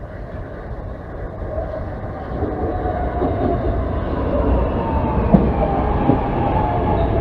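SEPTA Market–Frankford Line M-4 train arriving at an elevated station. Its rumble grows louder as it comes in, with a motor whine that falls slowly in pitch as it slows, and a sharp clack of the wheels over a rail joint about five seconds in.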